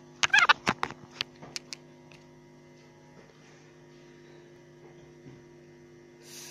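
Several sharp clicks and knocks in the first two seconds, the sound of a phone being handled while it is set up to record, then a faint steady electrical hum.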